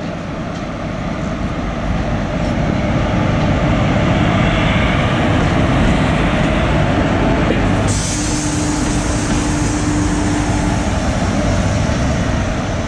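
Indian Railways locomotive running past at close range: a heavy, steady rumble and clatter of wheels on rail that builds over the first few seconds. About eight seconds in, the sound changes abruptly, and a steady tone is heard for about three seconds.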